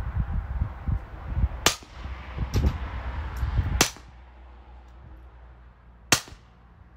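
Three sharp suppressed shots, about two seconds apart, from a Browning Buck Mark Micro Bull .22 LR pistol fired through a titanium .45-calibre suppressor. The supersonic .22 rounds still crack despite the can.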